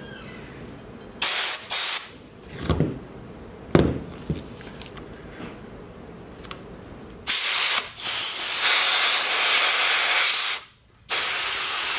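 Compressed air from a blow gun hissing through a port of a Shurflo 12 V diaphragm water pump, with air coming through it. Two short bursts come a little over a second in and a couple of knocks follow around three to four seconds, then a long hiss starts about seven seconds in, breaks briefly near eleven seconds and starts again.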